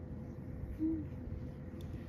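Domestic cat purring, a steady low rumble picked up close against its fur, with a brief higher note about a second in.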